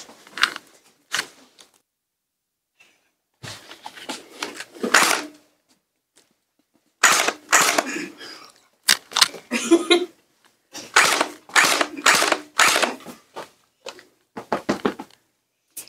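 A gel-ball splat gun fired repeatedly at close range, each shot a sharp snap, between short stifled breathy bursts from people trying to keep quiet.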